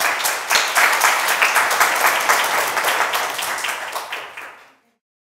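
Audience applauding: many people clapping at once, a dense patter of claps that fades out near the end.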